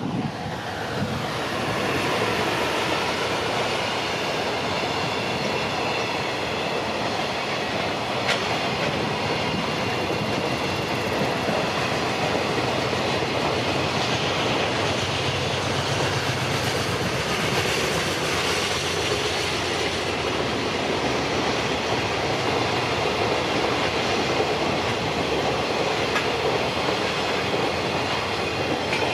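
Freight train hauled by a JR EF210 electric locomotive passing close by, its wheels clattering steadily over the rail joints with some wheel squeal. The sound builds over the first couple of seconds, then holds as the wagons roll past.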